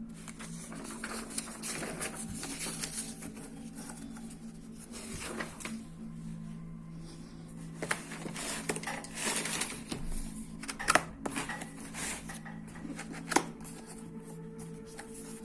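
Hands handling a laptop and its packaging: irregular rustling and crinkling with light clicks and taps, a few sharper taps in the middle stretch, over a steady low hum.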